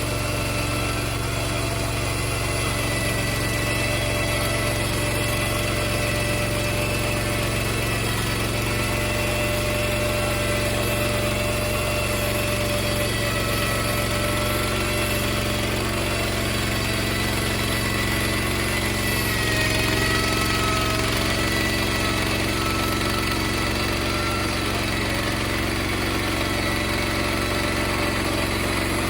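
Gasoline engine of a portable bandsaw sawmill running steadily while the mill cuts a stack of boards into batten strips. The pitch dips briefly about two-thirds of the way through.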